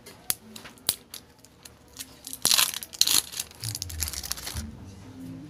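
Small plastic cosmetic jar of sunblock cream being handled and worked at to open it: a few light plastic clicks, then a loud crinkling, tearing rustle of plastic about two and a half seconds in.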